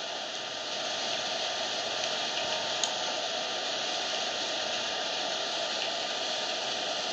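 Steady rushing background noise of a running machine, fan-like and unchanging, with one faint click of metal knitting needles about three seconds in.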